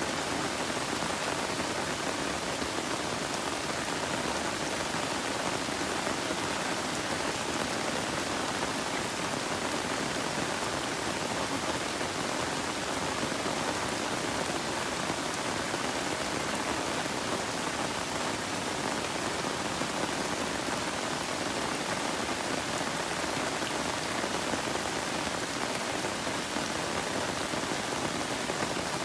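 Steady, even rain falling on a yard's leafy plants.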